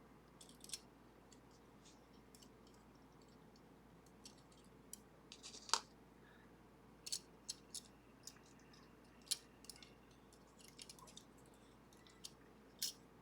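Levers of a Sargent & Greenleaf 4440 safety deposit box lever lock being taken out of the guard-side pack one at a time: scattered faint clicks and light metallic taps as the small steel parts are lifted and set down, the loudest a little under halfway through.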